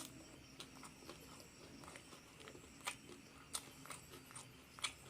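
Close-miked chewing of fried duck and rice, with scattered sharp, wet mouth clicks; the loudest come about three seconds in and again near the end.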